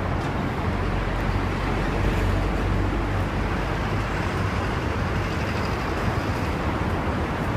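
Road traffic: a steady low rumble of passing motor vehicles, a little louder about two seconds in.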